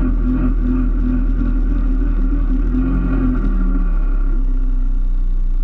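Rally car engine, a Peugeot 206, running steadily, heard from inside the stripped, roll-caged cabin; its note shifts slightly a little past halfway.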